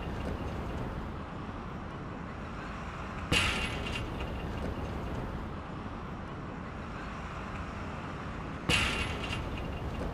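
Steady outdoor traffic rumble, with two sharp hits that ring briefly, about five seconds apart.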